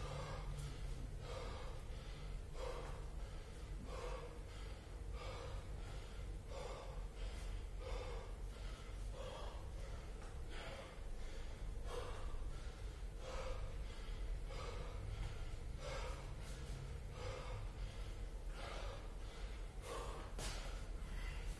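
A man's heavy, hard breathing from exertion while doing Cossack squats deep into a six-minute all-out workout, a forceful breath roughly every second and a half.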